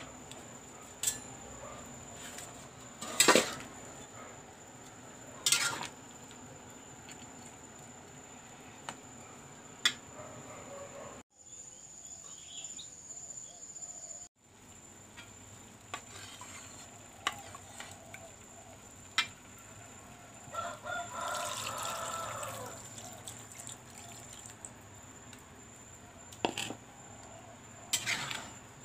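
A rooster crowing once, about two-thirds of the way through, over a low background with a steady high thin tone. Scattered sharp clicks and knocks come through, the loudest a few seconds in.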